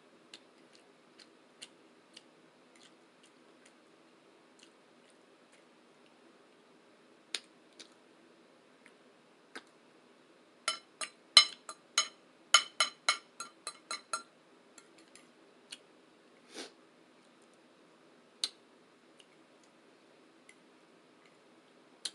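Close-up eating sounds: sparse wet mouth clicks and chewing, with a run of about a dozen crisp crunches near the middle, over a faint steady low hum.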